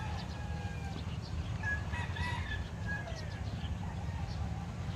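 A rooster crowing, over a steady low rumble.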